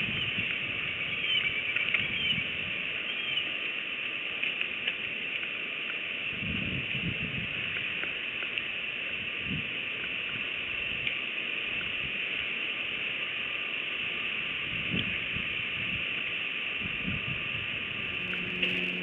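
Bald eagle working sticks in its nest: scattered low rustles and knocks of nest material over a steady high hiss, with a few short, faint bird chirps in the first couple of seconds.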